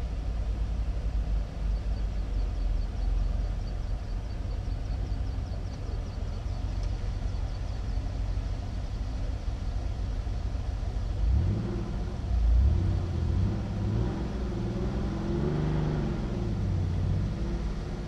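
Car engine idling with a steady low rumble while the car stands still. About halfway through, an engine's revs rise and fall a few times.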